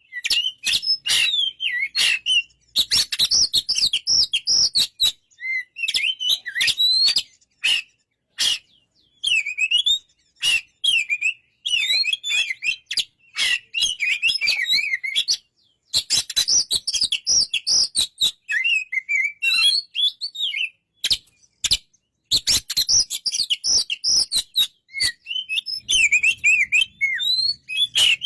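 Oriental magpie-robin (kacer) singing: bursts of rapid, varied whistled phrases that swoop up and down, mixed with sharp clicking notes, broken by short pauses.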